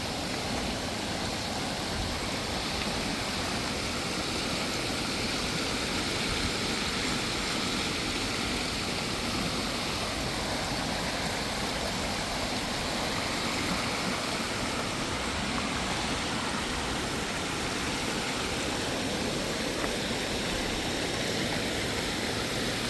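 Creek swollen with heavy rain rushing over rocks: a steady, rough roar of fast whitewater.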